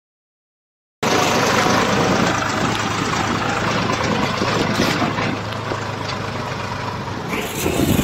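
Deutz tractor's diesel engine running steadily as the tractor drives, heard from the driver's seat. The sound starts about a second in.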